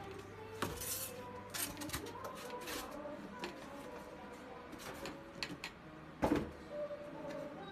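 Light clicks and knocks from handling, several of them scattered through, the loudest about six seconds in, over faint background voices.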